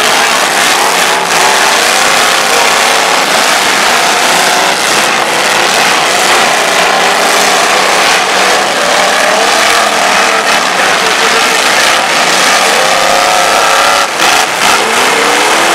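Several demolition derby cars' engines revving hard at once in a pile-up, their pitches overlapping and rising and falling as they shove against each other, with a brief dip about fourteen seconds in.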